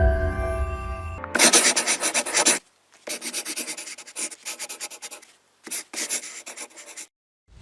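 Music fades out, then a dry scratching noise comes in several bursts, each cut off abruptly by silence.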